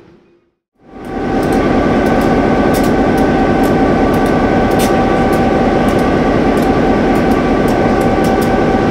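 HO-scale model train running: after a brief silence, a loud steady hum with a few held tones comes in about a second in, with scattered light clicks over it.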